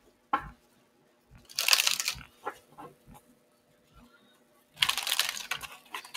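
A deck of oracle cards being shuffled by hand: two longer rustling bursts of shuffling, about a second and a half in and again near the end, with small taps and clicks of the cards in between.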